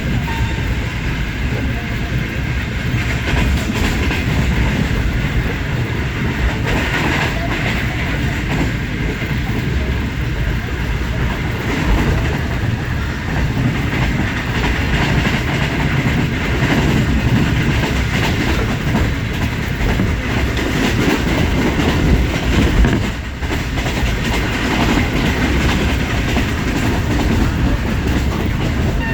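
Sir Syed Express passenger train running at speed: a steady loud rumble and rush of wheels on rails, with scattered knocks from the wheels throughout.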